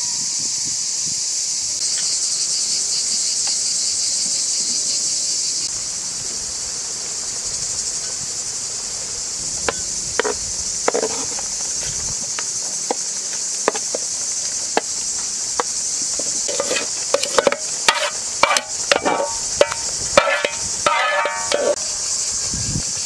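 A steady, high-pitched chorus of insects. From about halfway on, the clinks and scrapes of a metal frying pan and utensil come in, growing into a busy clatter near the end as fried onions are scraped and tipped into a cooking pot.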